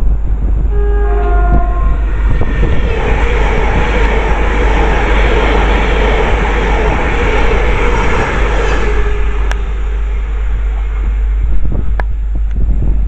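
Train passing through the station at speed: a brief horn sounds about a second in, then the rush of the train builds, holds for several seconds and fades away. Wind buffets the microphone throughout.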